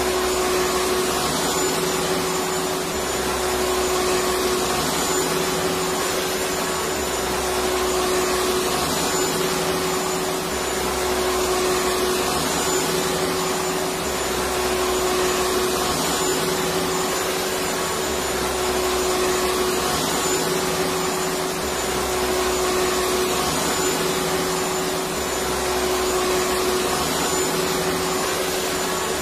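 Electric vacuum cleaner motor running continuously: a steady, dense whooshing with a constant hum, and a slight regular swell in the low end every few seconds.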